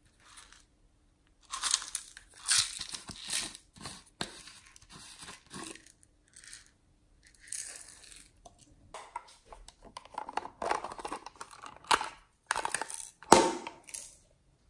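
Irregular crinkling, rustling and clicking of small plastic containers, lids and a tube being handled as toppings are added to a tray of slime, with the loudest sharp click about 13 seconds in.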